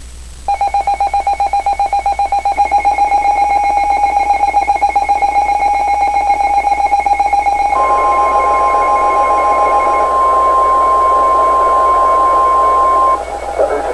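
Weather radio emergency alert: a loud, rapidly pulsing electronic beep for about seven seconds, then the steady single-pitch NOAA Weather Radio warning alarm tone of about 1050 Hz for about five seconds, which cuts off abruptly near the end. The tone signals that a warning message follows.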